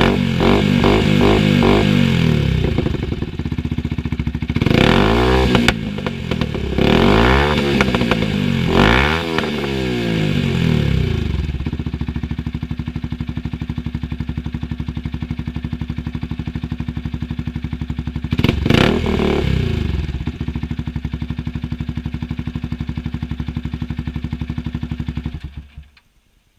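Yamaha YZF R125's single-cylinder four-stroke engine through a Dominator HP3 aftermarket exhaust, revved in a string of quick blips, then three bigger revs that rise and fall. It settles to a steady idle with one more rev midway and cuts off shortly before the end.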